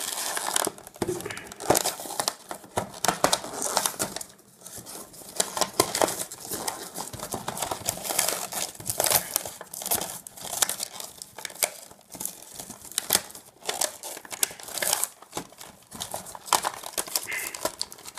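Clear plastic packaging bag crinkling and crackling as it is pulled and torn open by hand, in irregular crackles with a few short pauses.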